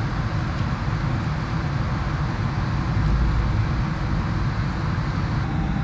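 Steady cabin noise of an airliner in cruise flight: a deep, even rumble with a hiss above it.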